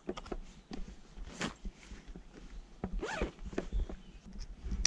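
A clothing zipper pulled close to the microphone in two quick strokes, about a second and a half in and again about three seconds in, with small clicks of fabric and gear handling between.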